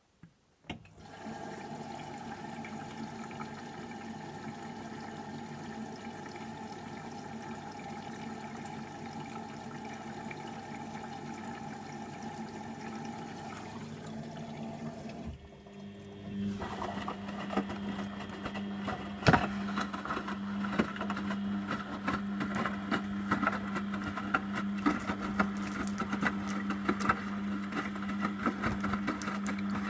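Beko washing machine at work early in a cottons 60°C cycle, with water running in the machine over a steady hum that starts about a second in. About halfway through the sound switches to a louder, lower hum with crackling water noise.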